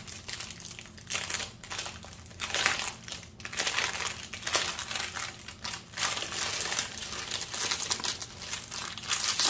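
Clear plastic wrapping around a bundle of bagged diamond-painting drills crinkling as it is handled, in uneven rustles that come and go.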